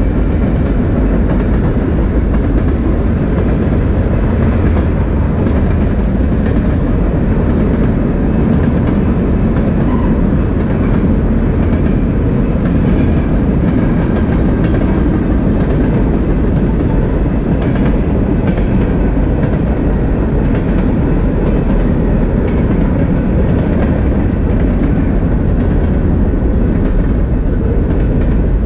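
Freight train cars rolling past, a steady loud noise of steel wheels running on rail: a long string of oil tank cars, with mixed freight boxcars passing by near the end.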